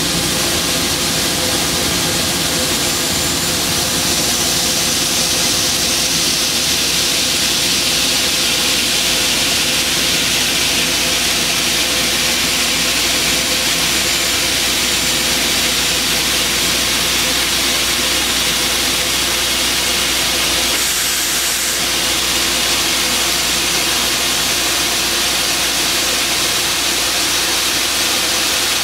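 Aslan US1-420 17-inch aluminium upcut saw running: a steady motor hum and whine under a loud high hiss, which changes briefly about two-thirds of the way through.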